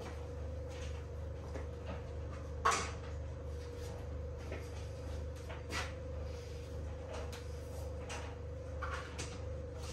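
Scattered knocks and clicks of kitchen handling at a worktop, items and cupboard doors being moved during food preparation, the loudest a single sharp knock about two and a half seconds in. A steady low hum runs underneath.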